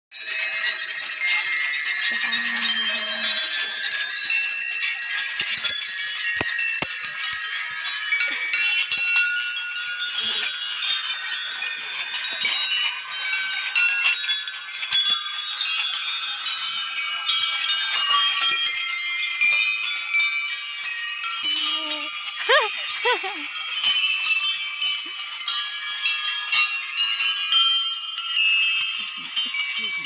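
Many hanging metal temple bells struck one after another by people walking past. Their overlapping ringing tones run together into a continuous jangle that never dies away.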